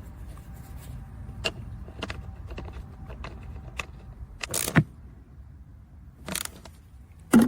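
Scattered metal clicks and clinks with a few sharper knocks, the loudest about four and a half seconds in and again near the end, as a steel seat bracket and its bolts are handled and fastened onto a plastic tractor seat. A steady low rumble runs underneath.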